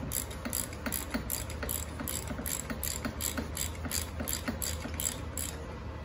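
Ratchet wrench clicking in steady back-and-forth strokes, about three clicks a second, as it works the injection control pressure (ICP) sensor out of a 6.0 Powerstroke diesel's valve cover.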